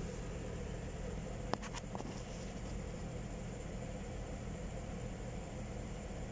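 Steady whir and hum of a mining PC's cooling fans running under a constant mining load, with a few faint clicks about one and a half to two seconds in.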